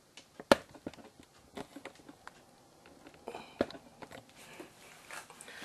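Scattered light clicks and knocks of handling, with a sharp knock about half a second in and another about three and a half seconds in, and faint rustling between.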